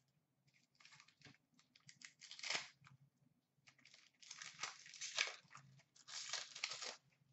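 Hockey trading cards being handled and sorted by hand: a few short bursts of papery rustling and sliding, over a faint low hum.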